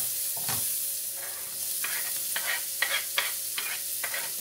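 Sliced mushrooms sizzling steadily in a frying pan as chopped onion is pushed in and stirred with a wooden spoon. The spoon gives a run of short knocks and scrapes, mostly in the second half.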